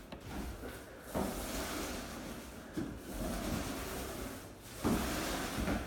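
Coating applicator on a long pole swished across a timber floor in three long strokes, each a second or two, with a few soft knocks at the start of the strokes.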